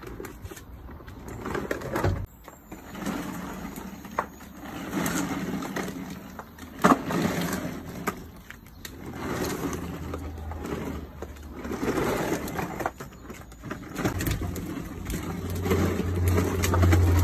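Hard plastic wheels of a child's ride-on toy quad rolling and grinding over rough pavement, in uneven spells with a few sharp clicks. A steady low hum comes in about three seconds before the end.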